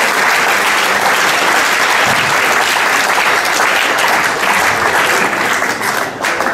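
A large audience applauding, the clapping thinning out near the end.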